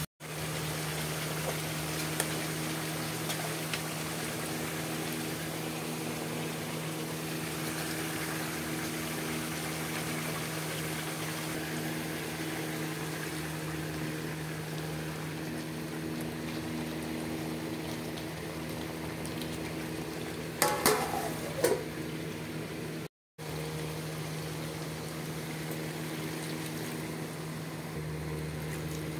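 Chicken curry sizzling and simmering in a metal pot, a steady hiss over a constant low hum. About 21 seconds in, a metal spoon scrapes and squeaks against the pot for about a second.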